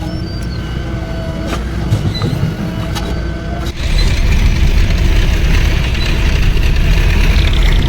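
Heavy diesel machinery running steadily, with a few sharp knocks in the first half; about four seconds in the engine sound jumps louder with a deeper rumble and stays there.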